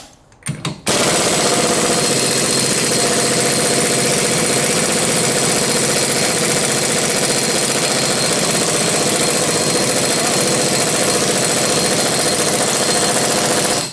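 Central Pneumatic twin-hammer air impact wrench hammering on a rear axle hub nut. Two short blips come first, then one continuous run from about a second in to the end. The nut is seized and does not budge.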